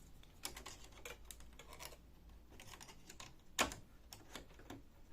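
Scattered small clicks and taps of hands releasing cable connectors from the scanner assembly of a Canon i-SENSYS MF229 printer, with one sharper click about three and a half seconds in.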